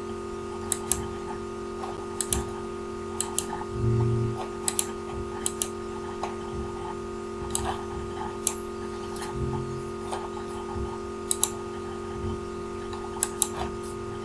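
Computer mouse clicks, scattered and often in quick pairs, over a steady low electrical hum.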